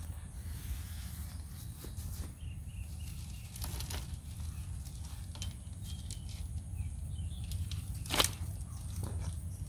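Rustling and scattered clicks as fishing gear is handled and packed up, over a steady low rumble, with one sharper knock about eight seconds in.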